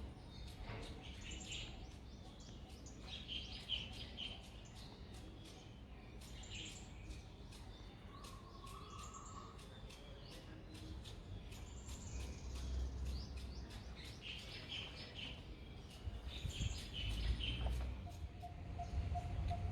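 Birds chirping in short repeated bursts over a low, steady rumble of background noise.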